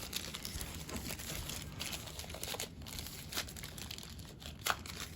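Faint rustling and crinkling of packaging as items are pulled out of the doorbell's box, with a few light knocks.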